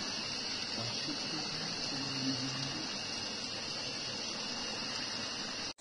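Shallow rocky river flowing steadily, with a constant high-pitched drone over it. Faint low voices murmur about two seconds in.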